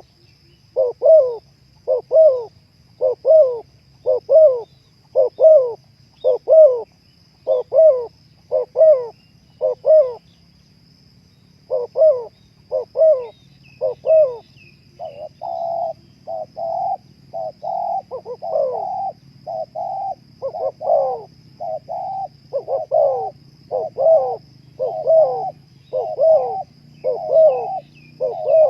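Spotted doves cooing, a regular run of short, low coo notes about two a second, with a brief pause about ten seconds in. From about fifteen seconds a second dove's coos overlap the first, and a few faint chirps from small birds sound above them.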